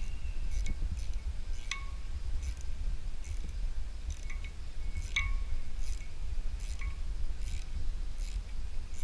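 Small socket ratchet turning out bolts on a tractor front-axle housing clamped in a vise: irregular metallic clicks and clinks, two of them ringing out, about two seconds in and about five seconds in.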